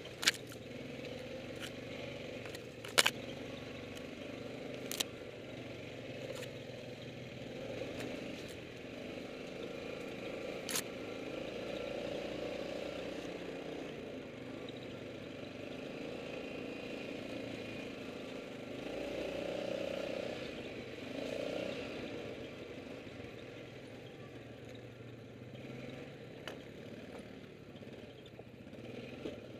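Yamaha quad's engine running steadily at low trail speed, swelling a little now and then. A few sharp knocks and clicks cut through it, the loudest near the start and about three seconds in, as branches and brush strike the machine.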